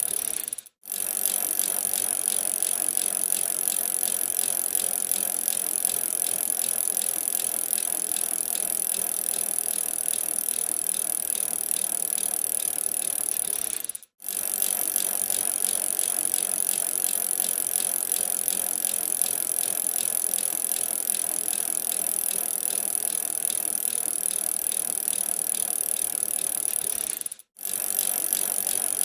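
Bicycle being ridden: a steady whir of tyres and drivetrain with rattling and ticking. It cuts out for a moment three times, near the start, in the middle and near the end.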